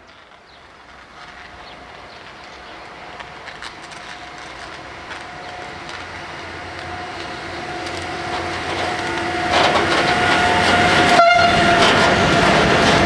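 Freight train of covered hopper wagons hauled by an electric locomotive approaching and passing close by, growing steadily louder, with a steady tone from the locomotive. In the last few seconds the wagons roll past with a dense rumble and wheel clatter over the rail joints.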